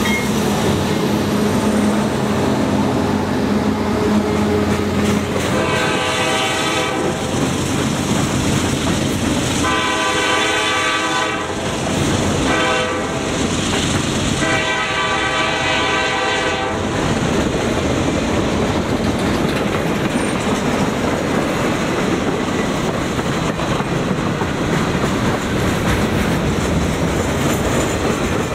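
Freight train passing: GE diesel locomotives working hard on a grade, then a train horn blowing two long blasts, one short and one long, the grade-crossing signal. Freight cars roll by with wheels clacking over the rail joints throughout.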